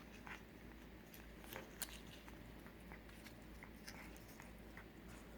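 A cat licking and eating a Ciao Churu puree treat: faint, irregular wet mouth clicks, the sharpest about two seconds in.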